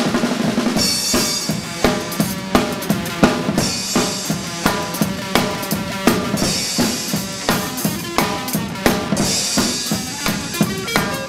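Music with a steady rock drum beat of kick and snare over bass and other instruments.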